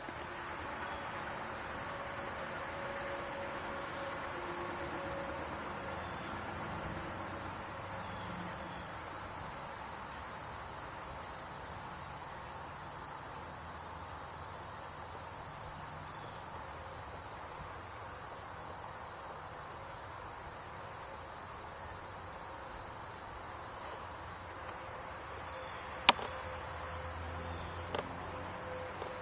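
Steady, high-pitched chorus of insects in late-summer woods, unbroken throughout. A single sharp click cuts through about 26 seconds in, with a fainter one shortly after.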